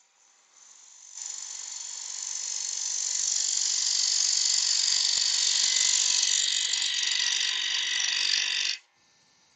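Parting tool cutting straight into an American cherry blank spinning on a wood lathe: a steady hiss of cutting that starts about a second in, grows louder over the next couple of seconds, and cuts off suddenly near the end.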